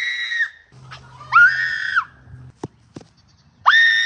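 Three shrill, high-pitched screams from a person, each held for roughly half a second to a second at a steady pitch and sliding down at the end. Two or three short sharp clicks fall between the second and third.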